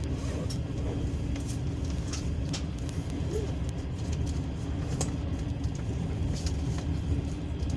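Freight train passing close alongside, heard from inside a passenger carriage: a steady low rumble of rolling wagons with scattered sharp clicks and rattles.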